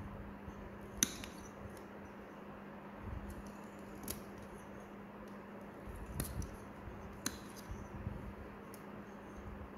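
Metal toenail nippers snipping through a thick, fungus-crusted toenail: a few sharp clicks, the loudest about a second in and others near four, six and seven seconds, over a steady low hum.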